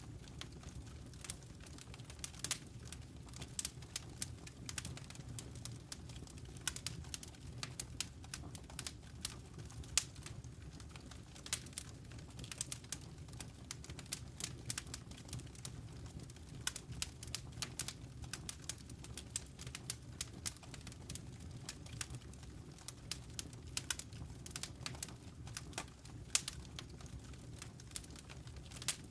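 Wood fire crackling: irregular sharp pops and snaps, several a second, over a steady low rumble of the burning fire.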